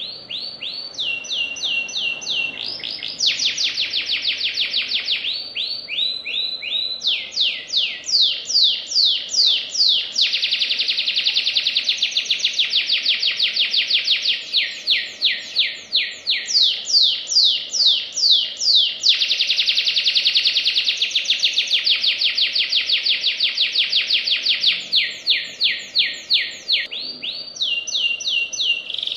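Domestic canary singing a long, loud song of rapid trills: phrase after phrase of quickly repeated falling notes, changing speed and pitch from phrase to phrase, some so fast the notes run together.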